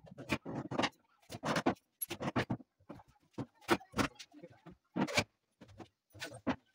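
Irregular clicks and knocks, a dozen or so short separate strikes, from hand tools and hands working against wooden wall-cabinet frames being fitted.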